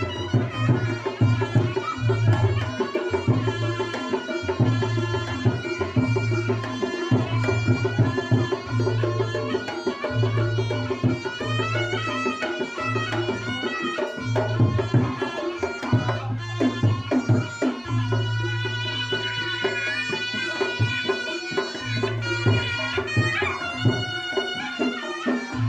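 Reog Ponorogo gamelan music: a wavering, nasal melody on the slompret (reed shawm) over busy kendang drumming, with a low sustained tone that recurs every second or two.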